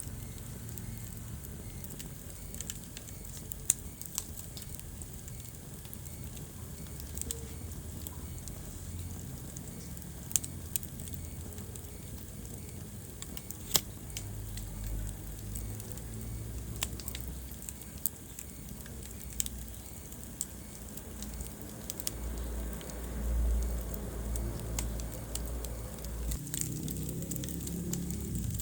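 Wood fire burning in a fireplace: a low steady rumble of flames with scattered crackles and a few sharp pops. The rumble swells for a few seconds near the end.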